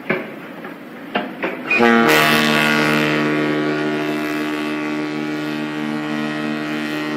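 A few sharp knocks, then a ship's horn sounds about two seconds in and holds one long, low, steady blast.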